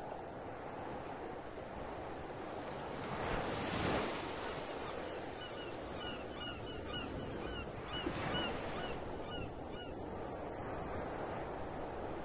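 Ocean surf washing in, with two louder swells of breaking waves, and a string of short, high bird calls over it through the middle.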